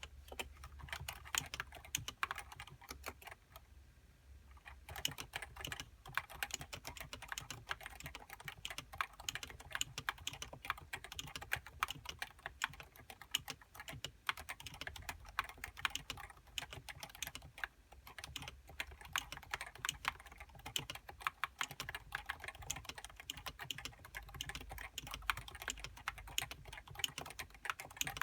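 Typing on a Topre Realforce 87U keyboard with variable-weight electrostatic capacitive (rubber dome and spring) switches and HiPro keycaps: a fast, steady run of keystrokes with a short pause about four seconds in.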